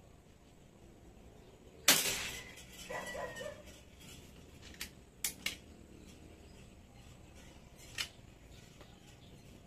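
One sharp rifle shot about two seconds in, followed by a short pitched cry, then a few light clicks around five seconds in and one more near eight seconds as the gun is handled and reloaded.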